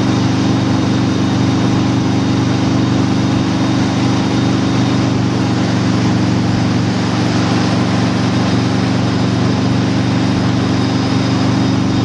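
Motorboat engine running steadily at speed while towing a wakeboarder, an even drone under a steady rushing noise of wind and water.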